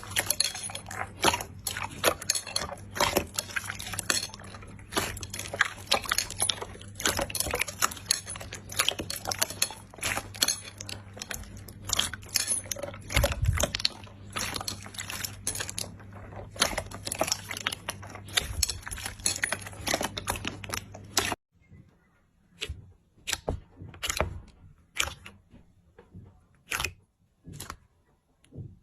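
Slime being squeezed and stretched by hand: a dense run of wet clicks and pops over a steady hum. About 21 seconds in it changes abruptly to quieter, sparser single pops.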